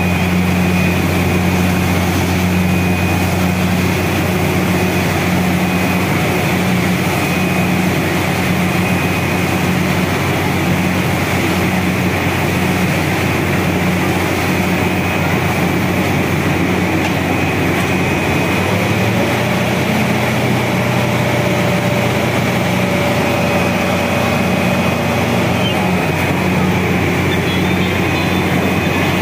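Truck-mounted borewell drilling rig running under load while drilling: a loud, steady engine drone with a thin high whine over it. About two-thirds of the way through the engine note shifts slightly.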